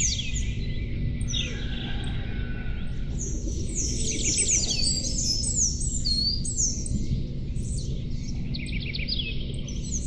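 Songbirds singing, a chorus of runs of quick, high, downward-sweeping chirps, over a steady low rumble.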